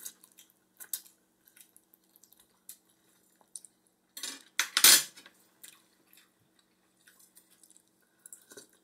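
Metal spoon and fork clinking and scraping against ceramic bowls and plates while eating, with scattered small clicks and one louder, longer noise about four and a half seconds in.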